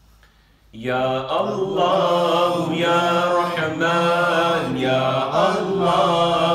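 A man chanting an Islamic devotional chant into a microphone, in long, drawn-out melodic notes with brief breaths between phrases. It starts about a second in, after a short hush.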